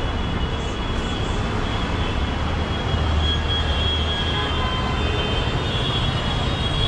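Steady city street traffic: a continuous low rumble of engines and tyres from the road under the flyover, with a thin high-pitched tone coming and going above it.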